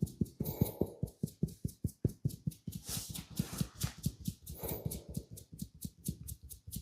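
Barber's hands tapping and patting rapidly in a massage, a fast run of dull thuds, about six to eight a second.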